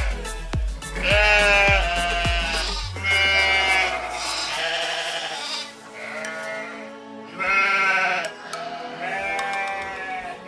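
Bleating from the penned 羊 (the zoo's goats and sheep) being hand-fed, about half a dozen wavering calls, over background pop music whose beat drops out about three seconds in.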